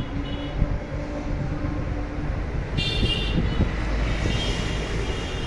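Street traffic with a steady rumble and high-pitched vehicle horns tooting, one about three seconds in and more near the end.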